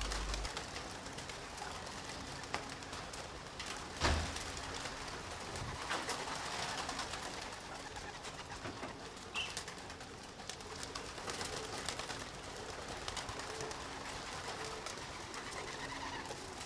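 Racing pigeons cooing in short, repeated low calls, with a single knock about four seconds in.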